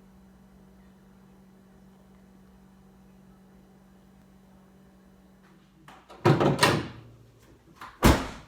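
A steady low hum, then two loud thuds, about six and eight seconds in.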